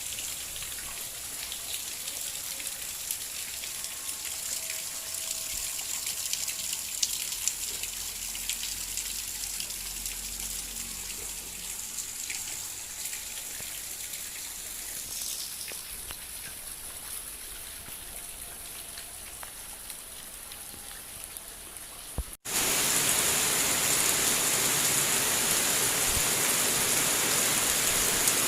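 Rain falling, with many small drop hits pattering. About 22 seconds in it cuts abruptly to louder, heavier rain.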